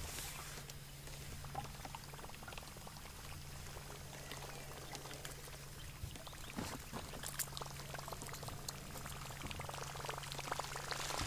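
Water lapping and trickling against an aluminium boat hull, with scattered light ticks and a steady low hum underneath.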